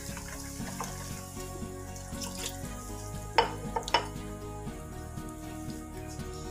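Blue silicone spatula stirring wet semolina (rava) idli batter in a steel bowl, a soft wet mixing sound with a few sharp taps against the bowl about three and a half and four seconds in.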